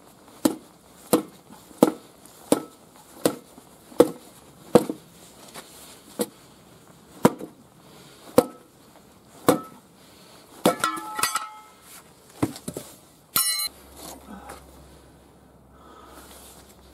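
Hammer blows on a steel tire lever wedged between a rusted tractor tire bead and its steel rim, breaking the bead loose: about a dozen sharp strikes, steady at first and slowing after about five seconds. Near the end come clanks and metallic ringing as the lever and the rusted steel rim knock together and the rim comes free.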